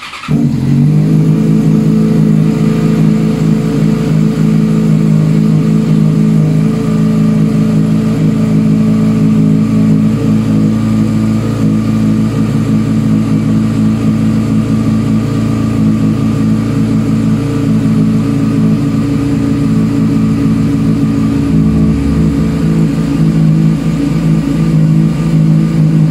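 Yamaha FZ6N's 600 cc inline-four catching on the starter right at the start, after three months standing, then idling steadily and evenly through its cold warm-up.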